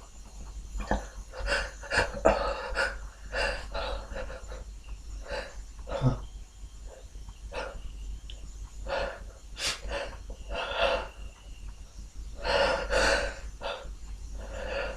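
A man sniffling in short, sharp sniffs and catching breaths again and again as a sneeze builds up but stays stuck, with a longer, louder breath near the end.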